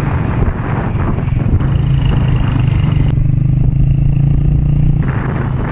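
Road vehicle's engine running with road noise while driving; about halfway through the engine settles into a steadier, even hum.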